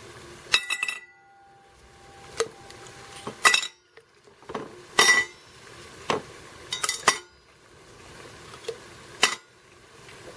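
Star-shaped ice cubes dropped one by one into stainless steel vacuum-insulated tumblers: a run of separate clinks, some with a short metallic ring.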